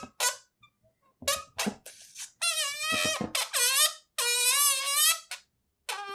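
Yellow rubber balloon squeaking as it is rubbed: a run of pitched squeaks with a wavering pitch, some about a second long, cut off sharply with short pauses between, and a near-quiet gap about half a second in.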